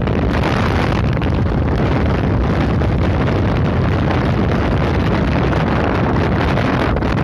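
Steady rush of wind buffeting the microphone on a moving motorcycle, with the bike's engine and road noise mixed in underneath.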